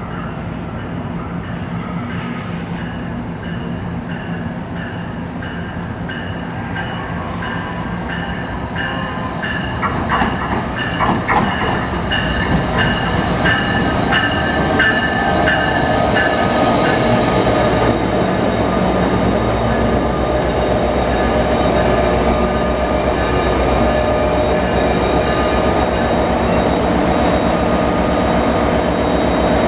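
An NJ Transit commuter train led by a PL42AC diesel locomotive pulls into the station, growing louder as it nears. About ten seconds in, the wheels click over rail joints, and as the cars draw alongside there is a steady rumble with a high squeal from the wheels as the train slows.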